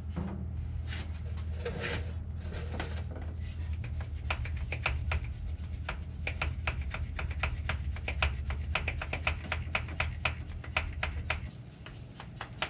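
Fuel transfer pump working to draw gasoline from the truck's tank, with rapid rhythmic clicking, about three or four clicks a second, over a low steady hum that stops near the end. The pump is pulling little or nothing: the tank is close to dry.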